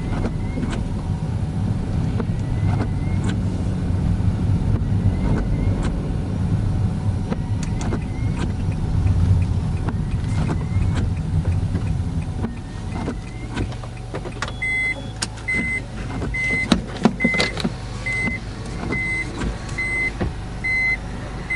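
Cabin sound of a Honda N-BOX kei car with a 660cc turbo engine driving on a wet road, engine and tyre noise steady, then dropping about twelve seconds in as the car slows. From about fifteen seconds a regular electronic beep sounds a little faster than once a second.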